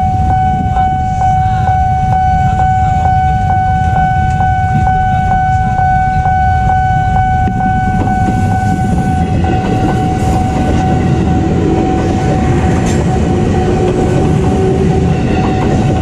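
Level-crossing warning bell ringing steadily, about two dings a second, over a low rumble of waiting traffic. From about nine seconds in, the approaching KRL electric commuter train grows louder.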